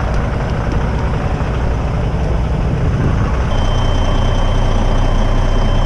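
Heavy truck's diesel engine running with a loud low rumble. About halfway through the engine note shifts and a steady high-pitched tone starts and holds.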